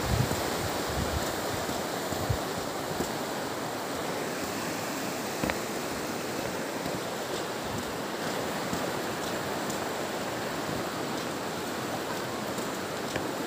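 Steady rush of river water flowing below, with a couple of faint knocks.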